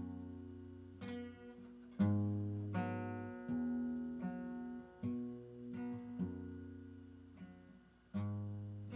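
Solo acoustic guitar played without singing: chords picked and strummed every second or so, each one ringing out and fading before the next is struck.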